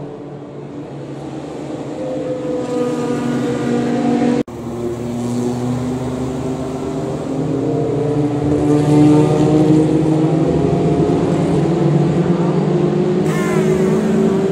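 Formula 1 car's engine idling just after start-up, a steady note that creeps slowly up in pitch, with a brief blip of the throttle near the end.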